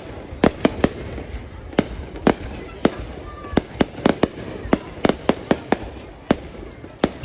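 Fireworks going off: an irregular run of sharp bangs, several a second, over a steady background haze of noise.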